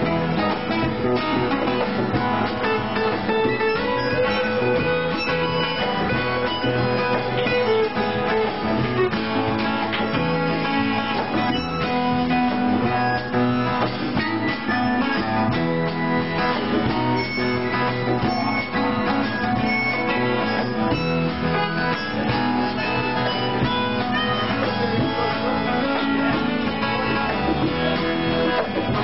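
Live band playing an instrumental stretch, led by a strummed acoustic guitar over other instruments.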